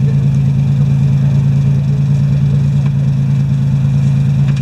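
Engine of a modified off-road 4x4 idling steadily, a loud, even low hum with no revving.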